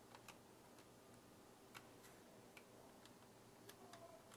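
Faint, scattered clicks, about eight in all and irregularly spaced, over near silence: calculator keys being pressed to work out the rod bearing oil clearance.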